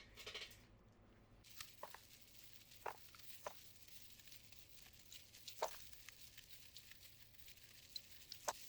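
Faint, scattered light clicks and taps from handling mechanical keyboard parts, about seven irregular ticks, with a brief rustle right at the start.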